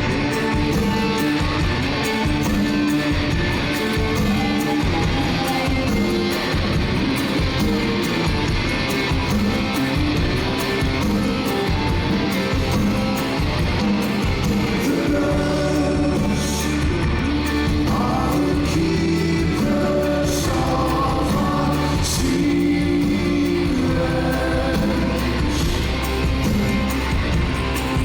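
Live rock band playing with a male lead vocal, heard in a theatre. A deep bass line fills in about halfway through.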